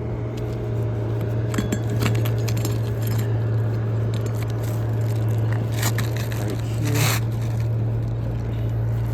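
Steady low hum throughout, with scattered light clicks and scrapes of metal roofing tools against asphalt shingles as a nail is worked in under a tab. One longer scrape comes about seven seconds in.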